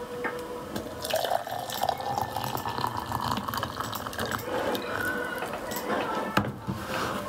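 Water poured into a glass measuring jug over dried flower buds. It splashes and fills for several seconds, the pitch of the fill rising early on, then stops near the end.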